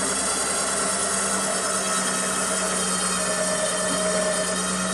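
Badlands Apex 12,000 lb electric winch motor running steadily under heavy load, winding its synthetic rope onto the drum as it drags an oak log of about a ton up onto a trailer through snatch blocks. A higher tone joins the hum about three seconds in.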